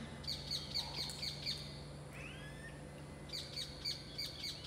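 Birds calling: one repeats a sharp high chirp about four times a second, in two bouts, the second starting a little over three seconds in. Between the bouts comes a single short sliding call. A faint steady low hum runs underneath.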